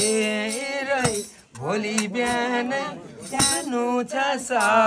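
A voice singing a song in long, wavering held notes, with a few sharp clinks of percussion.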